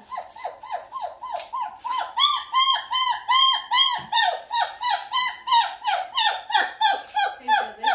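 Three-week-old puppy crying on a weighing scale: a rapid, unbroken string of short, high-pitched squealing cries, about three or four a second, growing louder after about two seconds.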